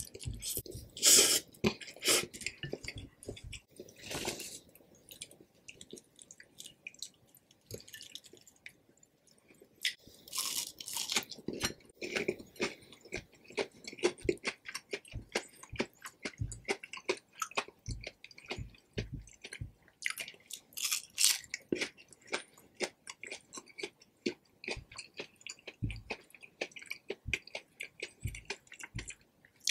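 Close-miked eating: a slurp of Indomie Mi Goreng fried noodles in the first seconds, then crunchy bites into breaded Spam fries and steady wet chewing. Rapid chewing clicks run throughout, with a few louder bites along the way.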